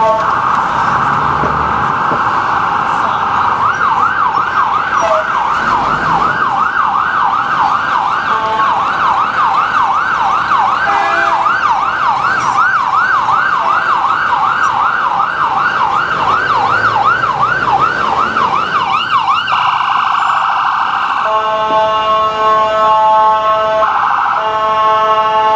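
Ambulance electronic siren switching between modes: a very fast warble, then a long stretch of yelp sweeping up and down about two to three times a second, then a short fast warble again. Near the end it changes to a steady, buzzing horn-like blast that breaks off briefly once.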